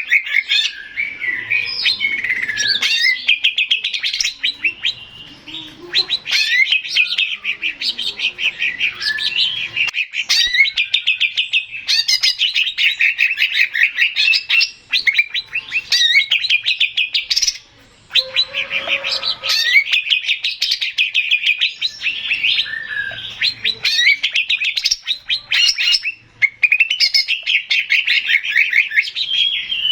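Male greater green leafbird (cucak ijo) singing a long, loud run of rapid trills and warbled phrases, broken by a few short pauses.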